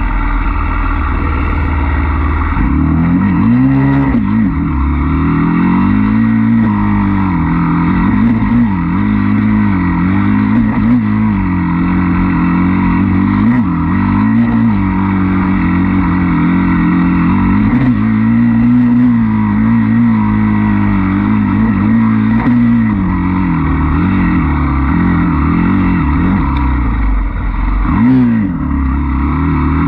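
Dirt bike engine being ridden hard on a woods trail, its revs rising and falling every second or two as the throttle is worked and gears are changed, with a brief drop in revs near the end.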